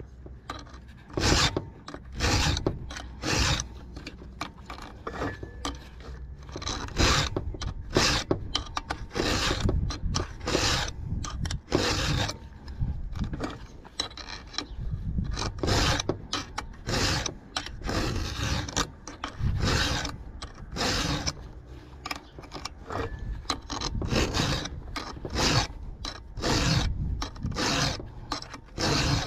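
A round chainsaw file is hand-stroked through the cutters of a .404 semi-chisel chain to sharpen them, giving rasping file strokes about once a second with a brief pause partway through.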